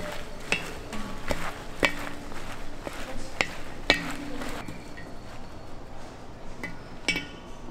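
Irregular sharp metallic clinks of knives, forks and serving skewers against plates and metal, several with a brief ringing, over a low background murmur.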